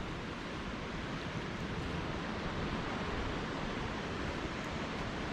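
Floodwater rushing steadily down a swollen creek, an even roar of flowing water.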